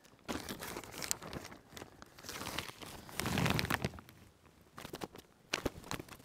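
Plastic compost bag crinkling and rustling as compost is scooped out by hand and crumbled into a seed drill in the soil. The rustling comes and goes, loudest a little past the middle, with a few sharp crackles near the end.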